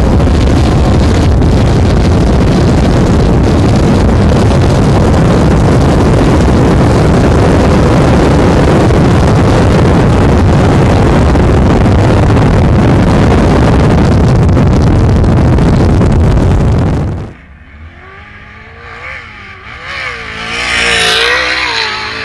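Off-road race truck engine running hard at high revs, loud and steady. About seventeen seconds in it drops off suddenly to a quieter engine note that rises and falls in pitch, then swells again as the truck comes close near the end.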